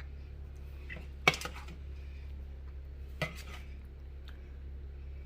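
Kitchen utensil clinking against a dish twice, about two seconds apart, over a steady low hum.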